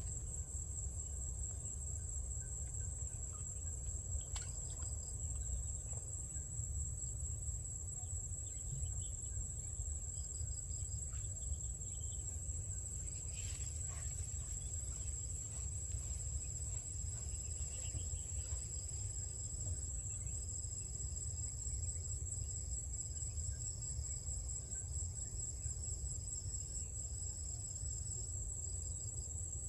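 Insects, likely crickets, trilling: one steady high-pitched trill with another high trill starting and stopping in short bouts, over a steady low rumble.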